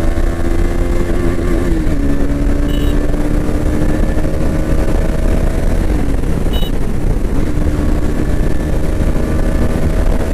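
KTM Duke 250 motorcycle's single-cylinder engine running under way at a steady speed. Its pitch climbs slowly and dips briefly twice, about two and six seconds in, as the throttle eases. Wind rumble runs underneath.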